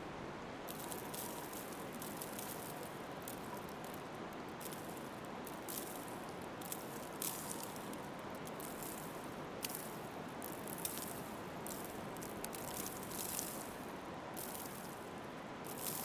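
Footsteps crunching through snow at a walking pace, over a soft, steady hiss of wintry outdoor ambience.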